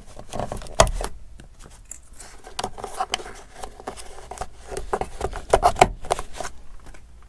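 Plastic rear seat pedestal trim cover being pressed and snapped into place over a truck's seat mount: a run of clicks and light plastic scrapes, the sharpest about a second in and two more about two-thirds of the way through.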